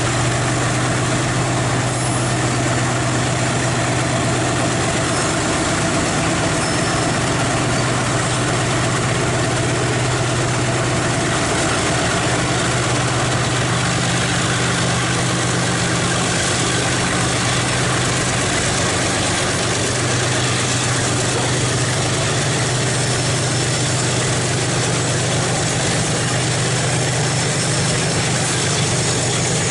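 Diesel locomotive engine running steadily at low revs, a deep even hum with no change in speed.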